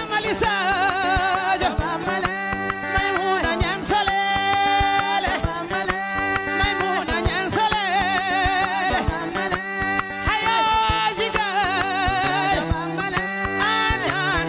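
A woman singing a melody of long held notes with wide vibrato, which comes in right at the start. She is accompanied by a plucked acoustic guitar and a hand-struck calabash drum keeping a steady beat.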